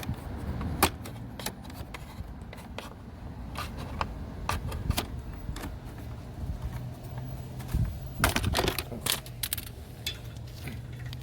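Scattered sharp clicks and short scrapes of a pry tool working the fairing speaker grille loose, with a denser run of scraping about eight seconds in, over a low steady hum.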